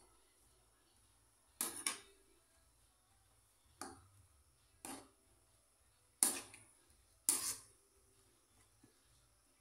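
Metal spoon scraping and knocking against an aluminium wok while stirring noodles in liquid: about six short clatters spaced one to two seconds apart, the first two close together.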